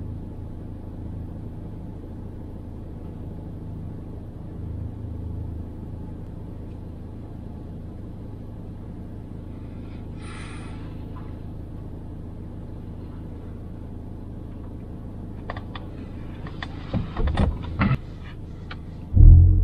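Ford Focus ST Mk4's 2.3-litre EcoBoost four-cylinder with Mountune M330 tune, idling steadily. A few clicks and knocks come near the end, then the engine note jumps to a loud rumble just before the end.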